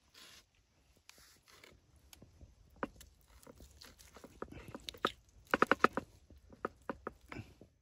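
Knife sawing through the crisp crust of barbecued pork ribs on a wooden cutting board, with crunching and clicks of the blade and metal tongs against the board. A quick run of crunchy strokes comes a little past halfway.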